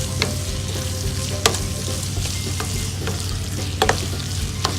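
Onions and chopped tomatoes sizzling in hot oil in a pan while being stirred. The spoon clicks against the pan about once a second, over a steady low hum.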